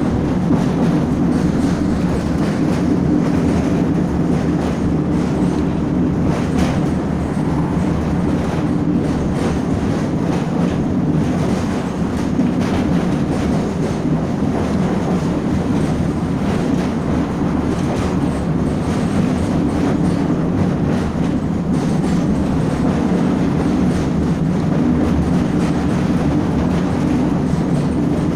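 Train running on rails: a steady low rumble with the clickety-clack of wheels passing over rail joints.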